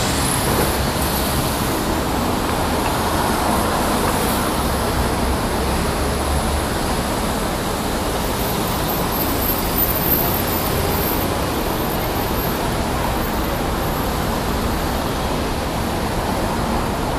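Steady city street traffic noise from passing cars, with a low engine rumble that dies away after about six seconds.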